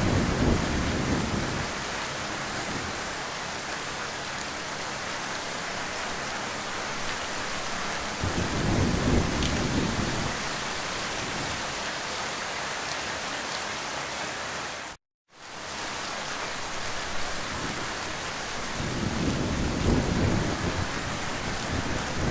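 Heavy rain falling in a steady hiss, with low rolls of thunder swelling three times: at the start, about eight seconds in, and building near the end. The sound cuts out completely for a split second about fifteen seconds in.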